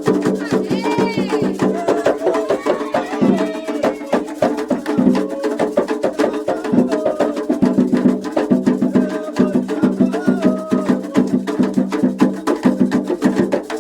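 Candomblé ketu ritual music for Xangô: atabaque hand drums and other percussion playing a fast, steady rhythm, with voices singing over it.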